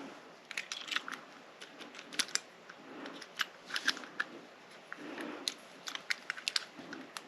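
Small, irregular metallic clicks and light scrapes of a lock pick working the pins of a pin-tumbler lock cylinder, about a dozen scattered ticks.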